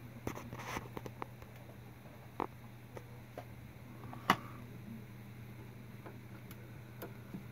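A low steady hum with a scattered handful of faint clicks and knocks, and one sharper click a little past four seconds in.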